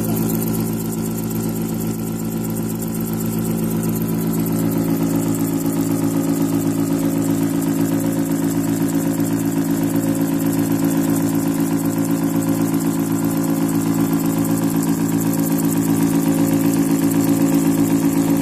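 CNC milling cutter cutting into the side of a heavy steel block: a steady, pitched machining hum with a fast, even pulse from the cutter teeth biting the metal, growing a little louder near the end.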